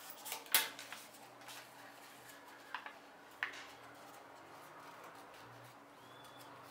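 Card stock being creased with a bone folder and folded by hand: a few sharp clicks and paper crinkles in the first few seconds, loudest about half a second in, then only faint room tone.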